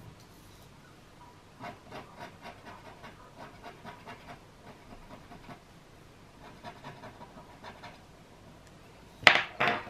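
Palette knife scraping through oil pastel on paper in quick short strokes, about three or four a second, in two runs. Near the end come two much louder, sudden rustling scrapes.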